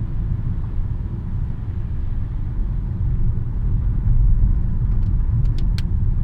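Car running, heard from inside the cabin as a steady low rumble, with a few short sharp clicks near the end.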